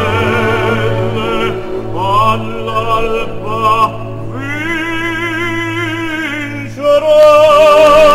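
Operatic singing over an orchestra, with long notes sung with vibrato; about seven seconds in, a loud new note is held.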